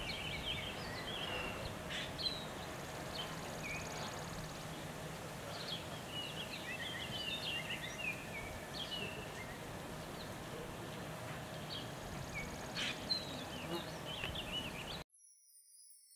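Outdoor ambience full of small birds chirping and twittering, over a faint steady hum; it cuts off abruptly near the end.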